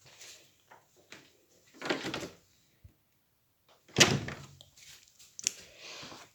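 Handling noises: a rustle about two seconds in, then a loud thump about four seconds in, followed by a few light clicks.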